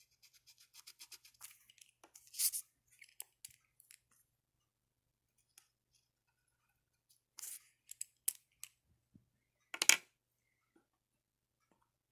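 Felt-tip marker scribbling on paper in quick back-and-forth strokes as a drawing is coloured in, with a louder scrape about two and a half seconds in and a few more louder strokes later on.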